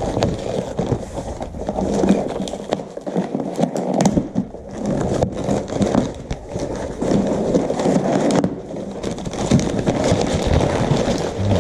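A cardboard shipping box being opened and unpacked by hand: irregular rustling, crackling and scraping of cardboard and packing material, broken by knocks and clicks.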